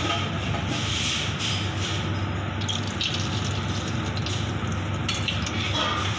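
Butter and cream sauce simmering and sizzling in a stainless steel frying pan on a gas stove, a steady hiss over a constant low hum.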